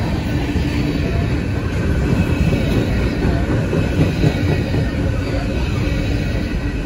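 CSX freight train's covered hopper cars rolling past, a steady rumble of steel wheels on the rails with a faint steady whine above it.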